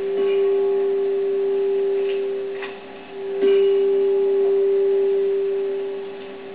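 Handbells rung together in a chord, struck twice about three and a half seconds apart, each stroke ringing on and slowly fading. Heard through a television's speaker.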